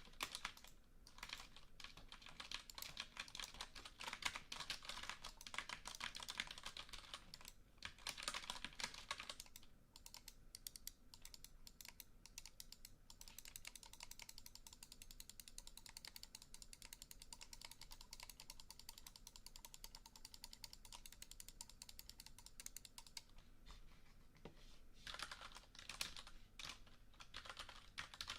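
Computer keyboard being typed on continuously, a rapid stream of key clicks. The typing is louder and denser for the first third and again near the end, and softer and lighter in between.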